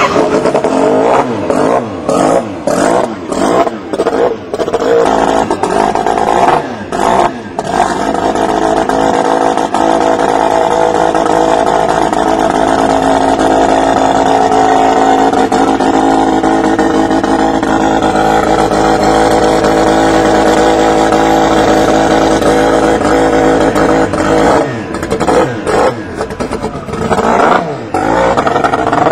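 Racing engine revved up and down several times, then held at a steady high speed for about fifteen seconds, then blipped up and down again near the end.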